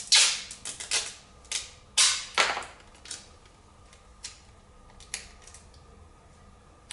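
Green tape being pulled off its roll in several short, noisy pulls, the longest in the first three seconds, followed by a few lighter clicks and ticks as it is handled.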